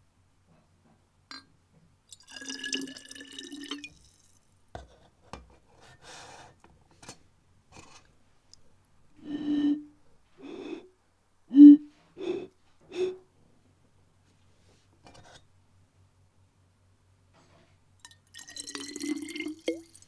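Bottles holding different amounts of water sounding notes of different pitch one at a time: a held note about two seconds in, a quick run of five short notes around the middle, and another held note near the end.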